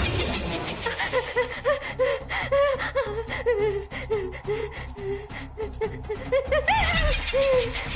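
A woman's frightened gasping and whimpering: a run of short, breathy cries about two a second, each rising and falling in pitch.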